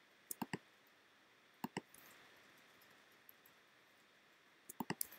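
Computer mouse clicking: three quick clicks near the start, two more a second later, and a rapid run of about five clicks near the end.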